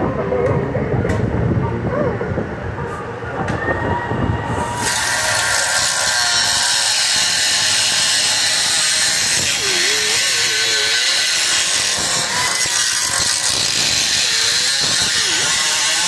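A few knocks and clatter of metal parts being handled, then about five seconds in a handheld pneumatic cut-off tool starts and grinds steadily into the steel hub of an old condenser fan blade on its motor shaft, cutting the blade free.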